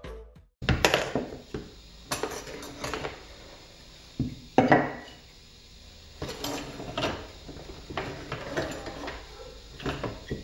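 Small cured fiberglass squares being laid out and shuffled by hand on a wooden workbench: irregular knocks and light clatter with scraping between, the loudest knock about four and a half seconds in.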